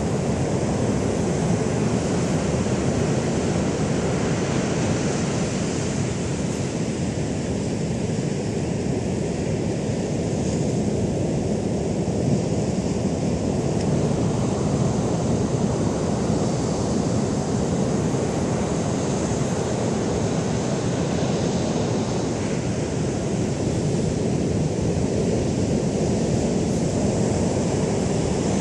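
Heavy Pacific storm surf breaking continuously in a steady, unbroken wash of noise, with wind blowing across the microphone.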